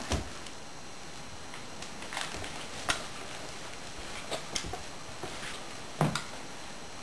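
Scattered soft knocks and sock-footed steps on wooden floorboards, with a louder thump about six seconds in as a cloth toy is dropped onto the floor.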